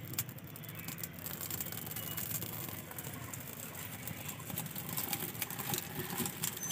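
Dry leaf kindling and firewood crackling as they catch fire in a clay mud stove, a dense irregular patter of small pops and snaps.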